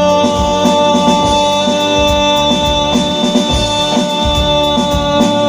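A Punjabi song: one long held note over a steady drum beat.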